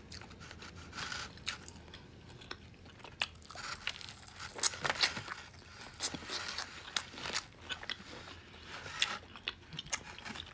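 Fried chicken wing being bitten and chewed close to the microphone: soft crunches of the crisp breading and scattered sharp mouth clicks and smacks, fairly quiet.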